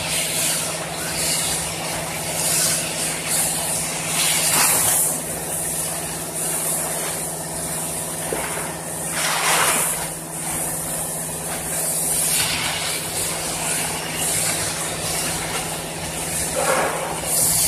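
Single-side tarpaulin welding machine running with a steady hum and hiss from its blower. The plastic PE tarpaulin sheet rustles and crackles in irregular bursts as it is pulled along the machine, loudest about halfway through.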